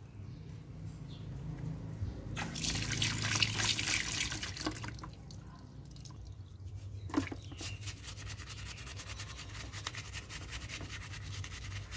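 Brush scrubbing the plastic housing of a Makita angle grinder in a basin of soapy water, with water splashing. The loudest scrubbing and splashing comes between about two and five seconds in. From about halfway on it turns into quick, even brush strokes.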